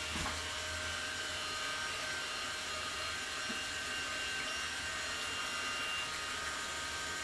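Steady background hum and hiss, even throughout, with a couple of faint clicks.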